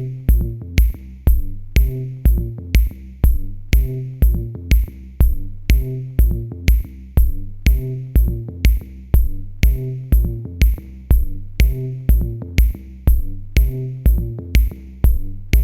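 Background electronic music with a steady drum-machine beat and a repeating bass line.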